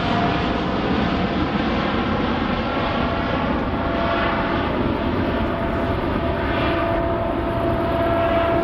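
Jet airliner engines running close by, a steady loud rumble with a thin high whine held throughout.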